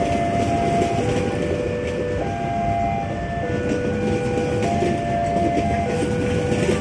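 Passenger train carriages rolling past at close range, a steady rumble of wheels on rails with light clickety-clack. Over it runs an electronic tone that switches between two pitches about once a second.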